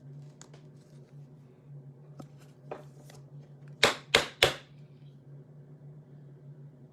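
Trading cards being handled: light rustling and clicks, then three sharp snaps in quick succession a little past the middle. A steady low hum runs underneath.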